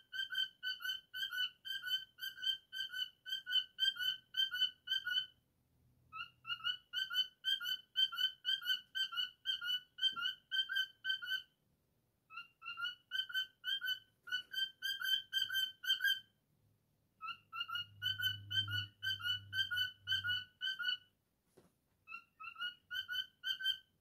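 Cockatiel whistling rapid runs of short notes on the same pitch, each note rising slightly, about three a second, in phrases of several seconds with brief pauses between.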